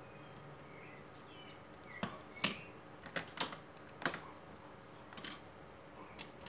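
Hands working wires and small plastic parts on a workbench: several sharp, separate clicks and taps, starting about two seconds in, as LED strip leads and connectors are handled.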